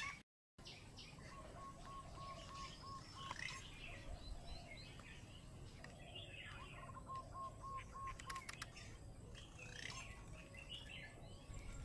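Faint outdoor birdsong: scattered short chirps and, twice, a quick run of evenly repeated notes. A few faint sharp clicks come about eight and a half seconds in.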